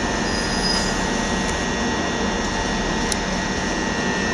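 Southern Class 377 electric multiple unit running at the platform: a steady mechanical hum with a thin, constant high whine.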